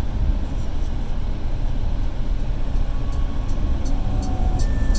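Deep bass from a car audio system's two Fi Car Audio BTL-4 18-inch subwoofers, a steady low rumble as a song starts playing loud. About three seconds in, faint evenly spaced ticks come in, about three a second.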